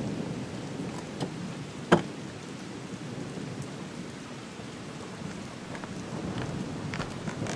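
Steady rain, with a single sharp knock about two seconds in and a few fainter ticks.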